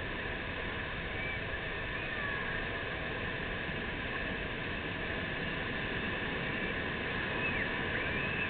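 Steady wash of ocean surf breaking along a sandy beach, an even, constant hiss. A few faint high-pitched calls come through briefly, about a second in and near the end.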